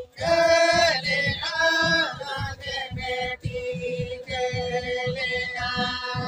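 Men singing a Santali banam song together, accompanied by bowed banam folk fiddles, with a steady held note and a low pulsing beat underneath. The singing is loudest in the first two seconds.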